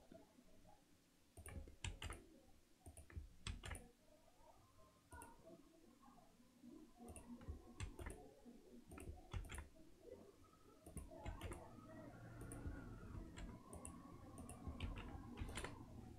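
Faint, irregular clicks of a computer mouse and keyboard keys being pressed, roughly one a second, over quiet room tone.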